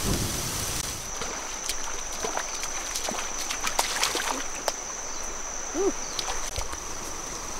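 Water sloshing and splashing with footsteps at a stream's edge, with scattered clicks and knocks, over a steady high-pitched whine.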